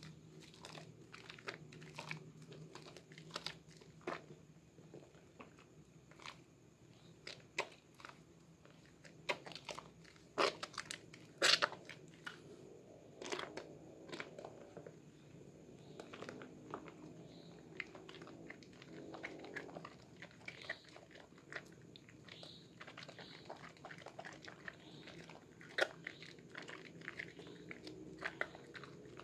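Hands lathering a bar of Sehat red soap in a basin of soapy water: wet squishing and squelching of foam and water, with irregular sharp squishes, the loudest a few around the middle and one near the end. A faint low hum sits underneath.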